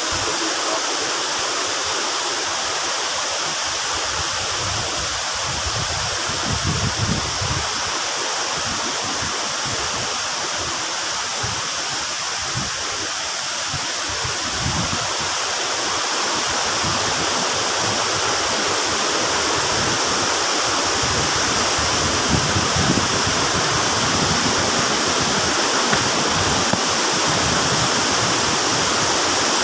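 Waterfall and fast-flowing rapids: a steady rush of water that grows a little louder after the middle.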